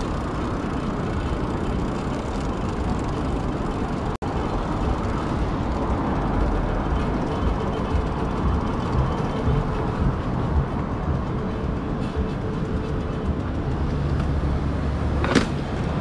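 Steady rumble and wind noise of an electric cargo bike riding over brick paving, with city traffic behind, the wind softened by a foam cover on the camera's microphone. A brief break about four seconds in, and a sharp click near the end.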